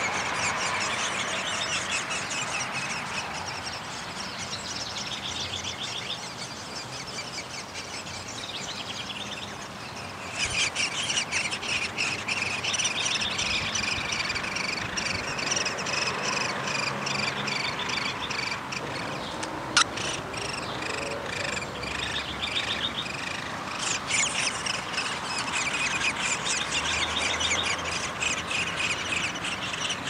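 Downy woodpecker nestlings calling in a fast, continuous chatter, quieter at first and much louder from about ten seconds in, typical of begging at a nest. One sharp tap sounds near the middle.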